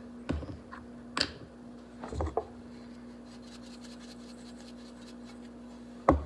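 A few brief knocks and taps as a spice shaker and a stainless steel mixing bowl are handled, with a crisp click about a second in, over a steady low hum.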